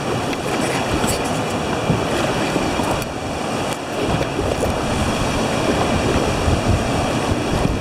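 Steady rushing of river water and rapids around a paddled inflatable raft, with wind buffeting the microphone.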